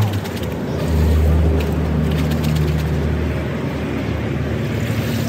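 An engine running steadily with a low drone, with faint splashing of water under it.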